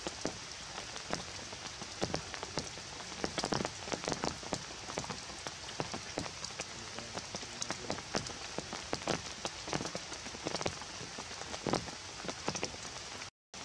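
Steady rain falling on wet ground, puddles and leaves, with many separate drops landing as sharp ticks. The sound cuts out briefly near the end.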